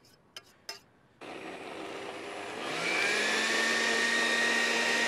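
A few sharp clinks of a metal cup against the blender jug, then an electric countertop blender starts about a second in. Its motor whine rises in pitch and settles into a loud, steady run as it purees the carrot mixture smooth.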